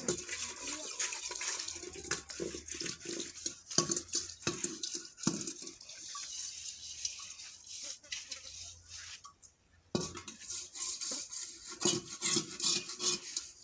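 Aluminium cooking pots being washed by hand in shallow water: irregular clanks and knocks of metal on metal, with water swishing between them and a brief lull about two-thirds of the way through.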